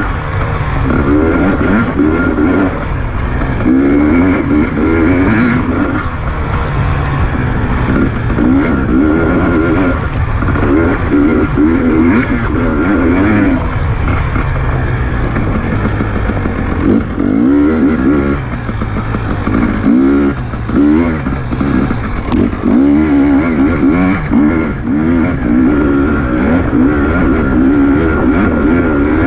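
Enduro motorcycle engine being ridden hard, its pitch rising and falling over and over as the throttle is opened and shut and the gears change.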